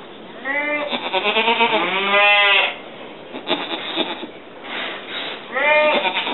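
An Angora goat doe in labour bleating: one long, wavering call about half a second in, then a short call near the end.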